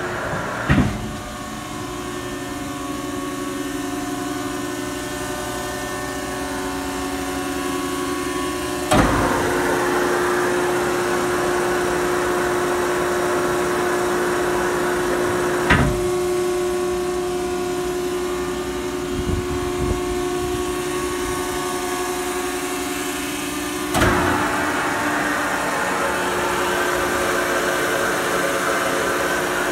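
Balemaster 4230G-8 auto-tie baler running, its hydraulic power unit humming steadily. Four sharp clunks come several seconds apart.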